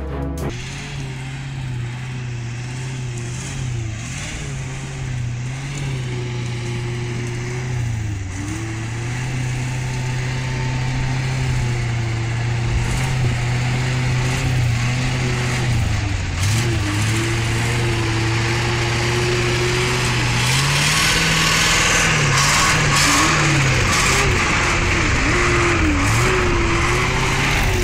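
Engine of a log-laden six-wheel-drive truck labouring through deep mud, its pitch repeatedly sagging and picking up again under load. In the last third a rising hiss of the tyres churning the mud joins in and the sound gets louder.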